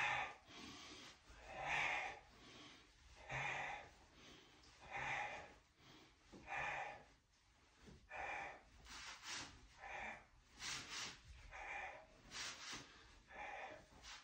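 A man breathing audibly: faint, separate breaths about every second and a half, turning into shorter, quicker breaths about halfway through.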